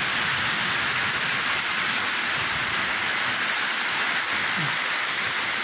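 Heavy rain pouring steadily onto a flooded street: a dense, even hiss of rainfall with no break.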